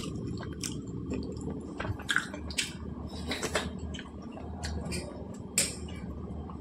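A person eating roti and wet vegetable curry by hand and chewing: soft, wet mouth smacks and small clicks at irregular intervals, over a steady low hum.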